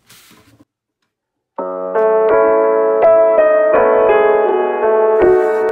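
Background piano music that comes in about a second and a half in, with clear separate notes over held chords. Before it there is only a faint brief noise and then a moment of near silence.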